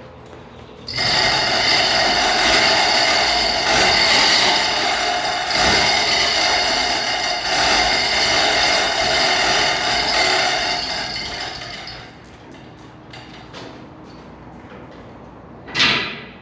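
Chain hoist running for about eleven seconds: a loud, steady mechanical whir of gears and chain that starts and stops abruptly. Near the end there is one short, sharp scrape as the body on its tilt dolly is pushed over.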